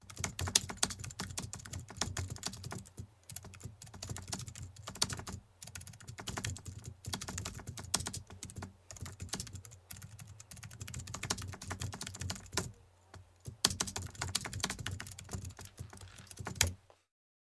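Keyboard typing sound effect: rapid, irregular key clicks with a few short pauses, cutting off abruptly near the end.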